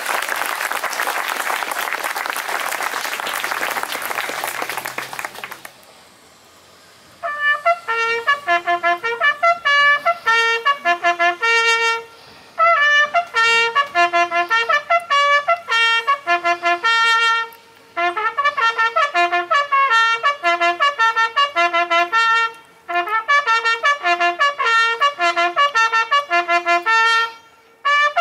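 Crowd applause that fades out about six seconds in. After a short pause a bugle call follows on a brass instrument, in four phrases of quick repeated notes on a few pitches.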